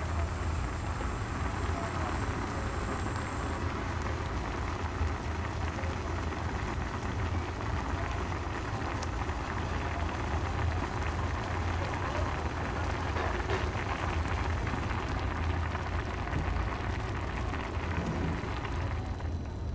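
Instant ramen boiling in a pot on a gas burner: a steady hiss and bubbling over a constant low burner rumble.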